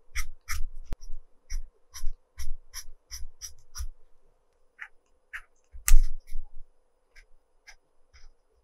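A pencil's point working on paper in short, quick strokes, about two and a half a second for the first four seconds. It then slows to a few scattered strokes, with one louder stroke around six seconds in.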